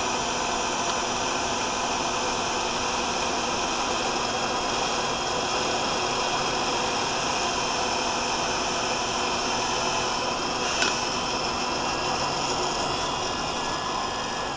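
Cordless drill running steadily under load as a high-speed-steel twist bit cuts dry through a hardened spring-steel leaf spring, with no chipping or chatter. There is a single sharp click about eleven seconds in, and the sound tapers off near the end, which is taken to be the bit breaking through the bottom side.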